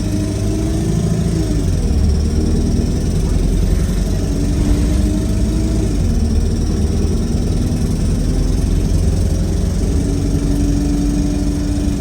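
Wright StreetLite bus making a very loud, strange sound: a heavy engine rumble overlaid by steady whining tones that hold for a few seconds, bend and shift in pitch, and come back. The cause is unknown.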